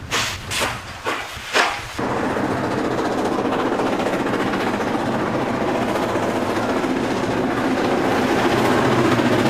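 Steam locomotive exhaust beats, sharp chuffs about two a second, for the first two seconds. Then a steady rushing train noise that slowly grows louder as another steam locomotive approaches, working hard.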